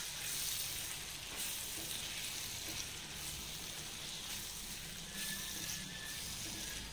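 Sliced onions and tomatoes sizzling steadily in coconut oil in a frying pan as they are stirred with a spatula, softening down.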